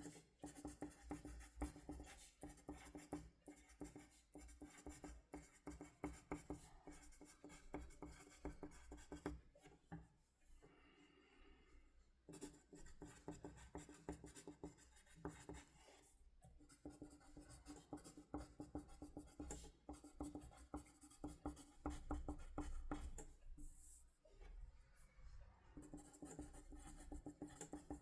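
Pen scratching across paper in quick, continuous strokes, pausing briefly about ten seconds in and again near the end, over a faint steady hum.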